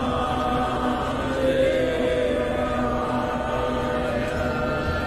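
Devotional chant of Shiva's names, sung voices holding a long drawn-out note over a steady drone.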